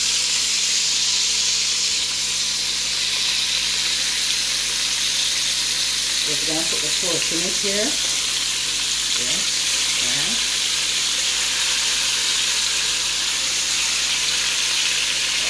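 Pieces of browning-seasoned pork sizzling steadily in hot oil and garlic in a pot as they are laid in to brown.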